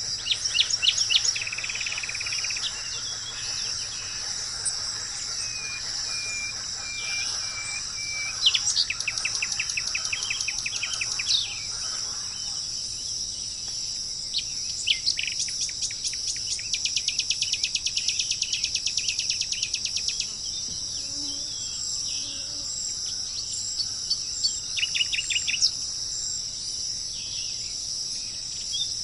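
Wild birds calling, with several rapid trills of quickly repeated notes and a short series of even whistled notes, over a steady high-pitched insect chorus of crickets or cicadas.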